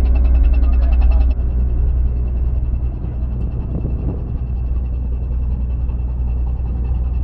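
A ferry's diesel engines running with a steady low drone and a faint rapid ticking above it. Background music fades out about a second in.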